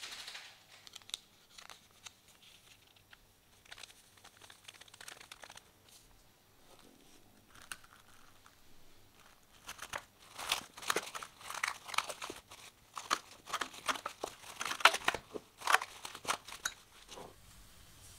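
Clear plastic cling film crinkling as it is stretched and pressed over a small glass. Faint rustles and crackles at first, then a dense run of loud crackling over the last several seconds.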